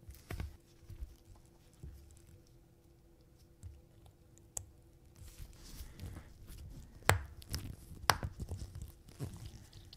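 Small, sharp clicks and light rustling from handling tiny pocket-watch parts with tools and gloved hands. Two louder clicks come about a second apart, around seven and eight seconds in.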